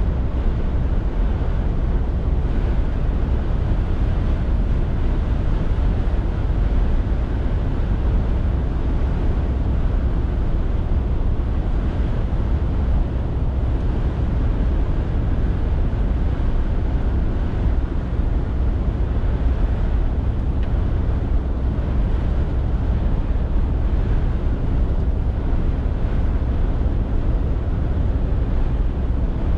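Scania R450 lorry's 13-litre six-cylinder diesel and tyres running at a steady pace: an even, deep rumble with no gear changes or changes in speed.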